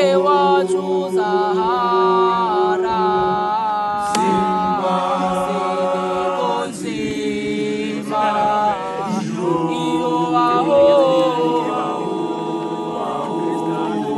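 Teenage boys singing a gwijo, a South African unaccompanied group chant, in several voice parts at once with long held notes. The singing breaks off briefly about four and seven seconds in before the voices come back in together.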